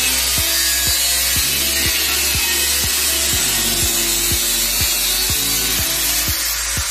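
Angle grinder cutting into the top rim of a steel drum, a steady high-pitched grinding, under background music with a steady beat of about two beats a second.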